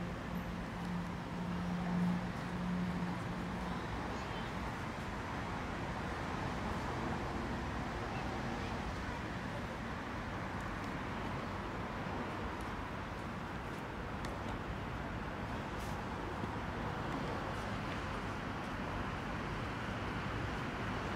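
Steady noise of city road traffic, with a faint steady tone in the first few seconds.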